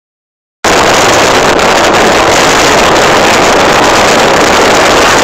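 Strong blizzard wind blasting across a phone's microphone: a loud, steady rush of noise that starts abruptly about half a second in.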